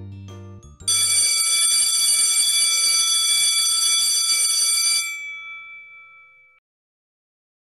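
Electric school bell ringing steadily for about four seconds, its hammer rattling rapidly on the gong; it then stops and the metal gong's high tones ring out and fade over about a second and a half.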